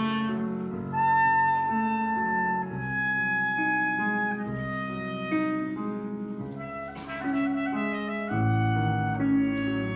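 Clarinet playing a melody of held notes over chords on an electronic keyboard. A fuller, deeper chord comes in about eight seconds in.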